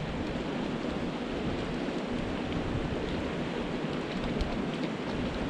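Steady rush of river water running over a rocky riffle.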